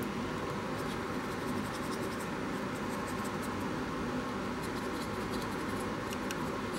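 Small paintbrush scratching and dabbing on a plastic HO-scale locomotive fuel tank as a weathering wash is brushed on: faint scattered ticks and scratches over a steady background hiss.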